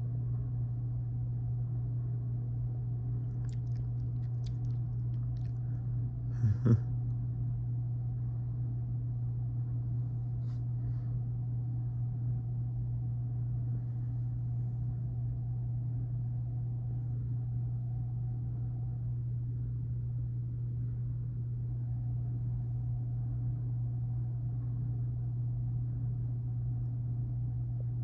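Low, steady rumble of a freight train passing, heard from inside a room. There is a short double knock about six and a half seconds in.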